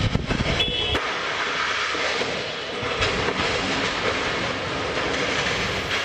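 A remote-controlled construction crane tipping over, heard through a doorbell camera's microphone: heavy thumping for the first second, with a short high beep about half a second in, then a loud, steady noise.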